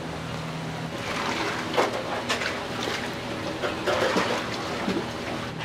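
Hot broth sloshing and splashing in a large pot as it is stirred and poured through a strainer, over steady kitchen noise, with a few sharp knocks.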